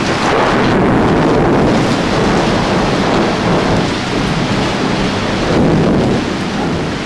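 Heavy rain pouring, with thunder rumbling; the rumble swells near the start and again about six seconds in.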